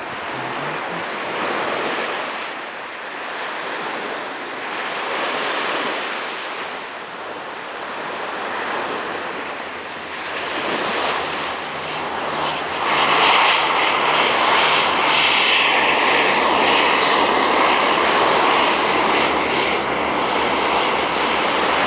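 Surf washing onto a sandy beach, with wind on the microphone. About halfway through, the propeller engines of a low-flying Canadair water-bombing amphibian come in and grow louder, then keep up a steady drone as it skims low over the sea.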